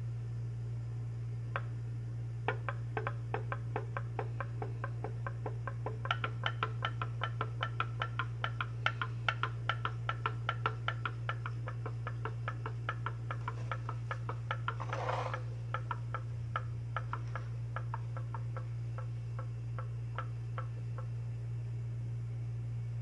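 Candle-heated homemade pop-pop steam engine running: its thin metal diaphragm clicks in a quick, regular rhythm of a few pops a second. The popping starts about a second and a half in, grows louder and quicker, then slows and dies away near the end.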